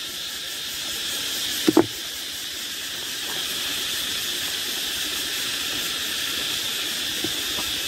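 Stones being wedged into a rock crevice by hand, giving a sharp double knock about two seconds in, over a steady high hiss.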